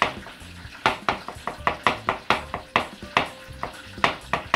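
Chef's knife chopping raw scallops on a plastic cutting board: quick, even chops, about four to five a second.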